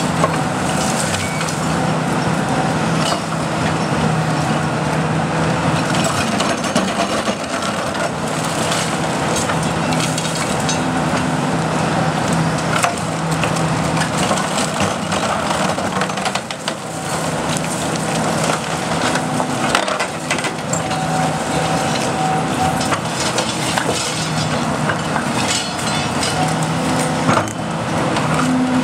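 Hitachi Zaxis 300 excavator's diesel engine and hydraulics running steadily under load while its demolition shear crushes and snaps debris, with repeated cracking and splintering throughout.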